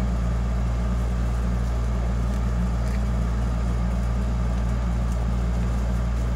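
A steady low hum, with a few faint ticks and rustles of ribbon being wrapped around a cardboard template.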